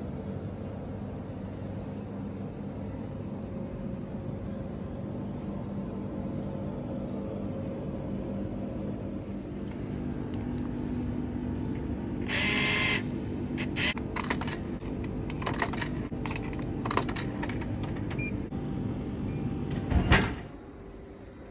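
Steady hum of refrigerated drink vending machines. About twelve seconds in there is a short beep, then a run of clicks. Near the end comes a loud thud as the purchased bottle drops into the machine's tray.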